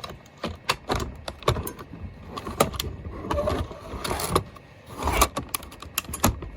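Hard drive being handled and fitted into a Compaq LTE 5000 laptop: a run of plastic and metal clicks and knocks, with a few short sliding scrapes.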